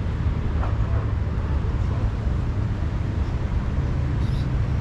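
Steady low rumble of wind buffeting the camera microphone outdoors.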